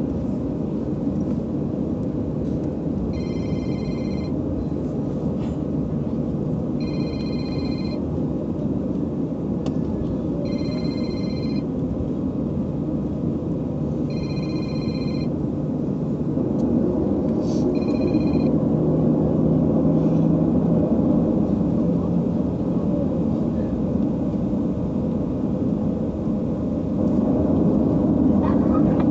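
Steady airliner cabin rumble. Over it, a short electronic ringtone sounds five times, about every three and a half seconds, and stops about eighteen seconds in. The rumble grows a little louder after that.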